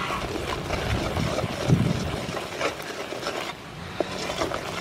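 Wooden spoon stirring and scraping bubbling palm-sugar caramel with chopped garlic in a metal pot, with a few light knocks of the spoon against the pot.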